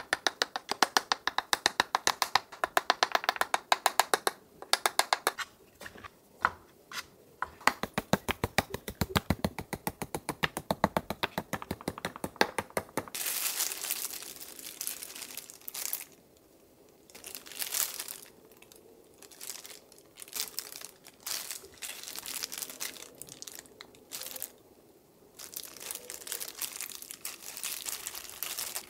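Fast, even tapping on a small fine-mesh strainer as starch is dusted onto eggplant slices. About 13 seconds in this gives way to the crinkling of disposable plastic gloves and soft scraping as shrimp paste is scooped with a wooden spoon and spread onto the slices.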